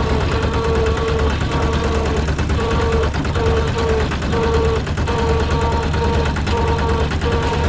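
Rice combine harvester running at work: a steady engine drone with a rapid, dense clatter from the machinery, and a whine that breaks in and out about once a second.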